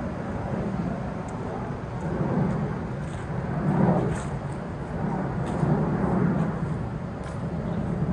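Outdoor background noise on a handheld recording: a low rumble that swells and fades several times, loudest about four seconds in, with faint scattered ticks.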